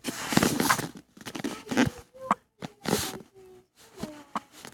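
A child's non-word vocal noises: a string of short, breathy bursts in an irregular rhythm, with a few brief pitched sounds.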